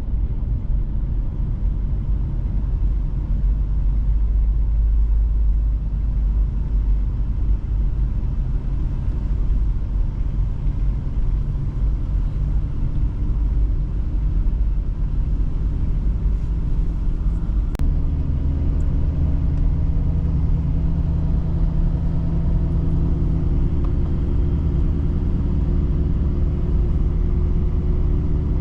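Pickup truck driving, heard from inside the cab: a steady low engine and road rumble. About two-thirds of the way in there is a sharp click, after which the engine note settles into a steadier hum.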